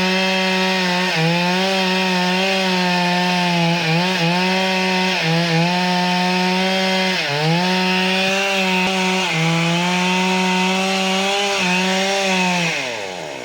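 Stihl two-stroke chainsaw running at full throttle while cutting wood. Its pitch dips briefly several times as the chain bogs under load. Near the end the throttle is released and the engine winds down.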